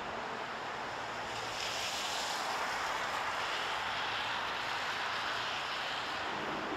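Steady rushing of flowing water, a hiss without any pitch that grows slightly stronger after about a second and a half.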